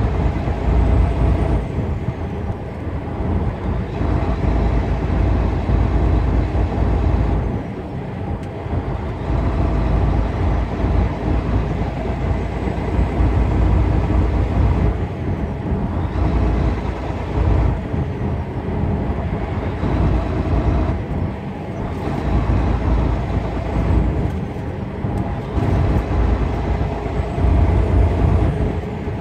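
Semi-truck running down the road: a steady diesel engine drone with road noise, the level rising and falling slightly.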